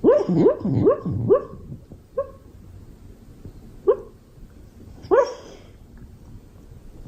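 Beagle barking: a quick run of four or five barks in the first second and a half, then single barks spaced a second or two apart.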